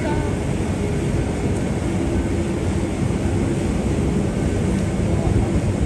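Busy city street noise: a steady, loud drone of traffic with a faint, even low hum running through it.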